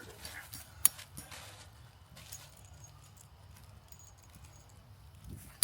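Tent parts being handled during pitching: one sharp click a little under a second in, then a few faint ticks.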